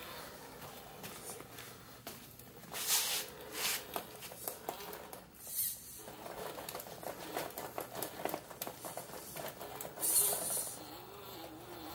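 Brushed crawler motor and steel spur-gear drivetrain of a 1/10-scale RC rock crawler whining at low speed, its pitch wavering up and down with the throttle, clearer in the second half. Rubber tires scrape and knock on the wooden steps, with a few brief louder rasps, about three seconds in, again near the middle and about ten seconds in.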